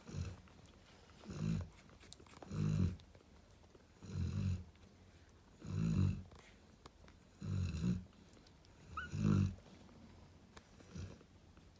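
Cane corso snoring in her sleep: a low rumbling snore comes about every one and a half seconds, with short quiet gaps between.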